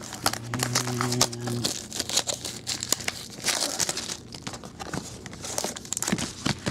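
Foil trading-card pack wrappers crinkling and tearing as packs are pulled open and handled, a dense run of irregular sharp crackles and rustles.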